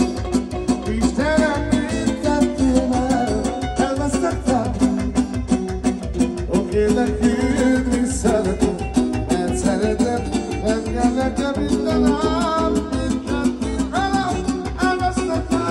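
Live Romani dance music (joc țigănesc) from an amplified band: keyboard and guitar with an ornamented melody over a fast, steady beat.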